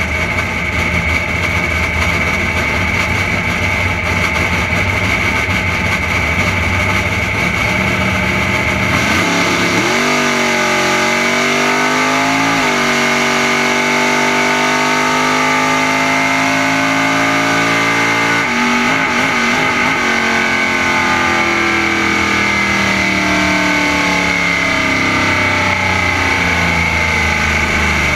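Henry J drag car's engine heard from the car during a drag run: a low, steady rumble at the start line, then a launch about nine seconds in with revs climbing fast. A gear change drops the pitch a few seconds later, the driver lifts off around eighteen seconds in, and the revs fall away as the car coasts down. A steady high-pitched whine runs underneath throughout.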